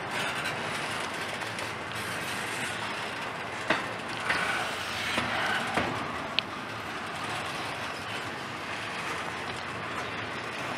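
Norfolk Southern double-stack intermodal well cars rolling past at speed, their wheels running steadily on the rails. A few sharp metallic clanks come between about three and six seconds in, with a brief high squeal among them.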